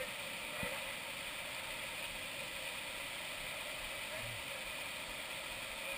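Steady hissing rush of a small waterfall pouring into a canyon pool, with water splashing around people wading through it.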